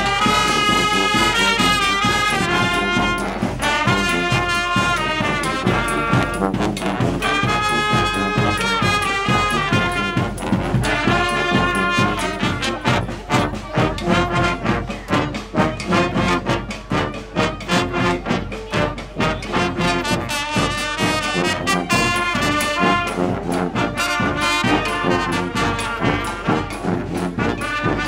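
Brass marching band playing a loud ensemble tune, trumpets and trombones in several parts over a steady rhythmic beat.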